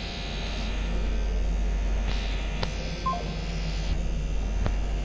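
Low steady motor hum from the small DC motor on the test rig, under handling rustle and a few sharp clicks, with a short two-note phone beep about three seconds in.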